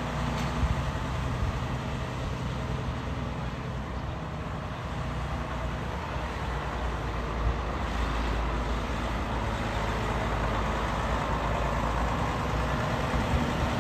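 2014 Freightliner Cascadia semi tractor's diesel engine running as the truck drives slowly around and turns. The sound is steady and grows a little louder in the second half as the tractor comes back toward the microphone.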